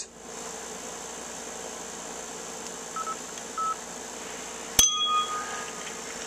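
Two short electronic beeps about three seconds in, then a sharp ding that rings for about a second, over a steady background hum and hiss.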